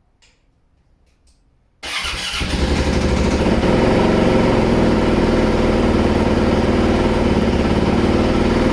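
Braaap MX450 450cc four-stroke dirt bike engine starting: it catches suddenly about two seconds in and settles into a steady idle, its first run on freshly filled engine oil.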